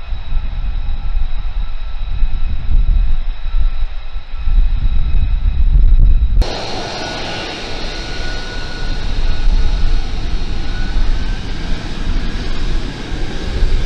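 F-35B fighters taxiing, their single F135 turbofan engines running with a steady high whine over a deep rumble. About six seconds in the sound shifts suddenly to a closer, brighter jet whine.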